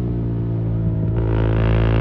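KTM Adventure 390 single-cylinder engine running through a de-catted custom exhaust at a steady engine speed. About a second in, the exhaust note gets louder and harsher.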